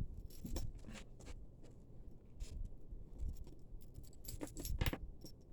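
Tangled costume jewelry, chains and beads, clinking in the hands as a knot is worked at: scattered light clicks, bunched near the start and again near the end.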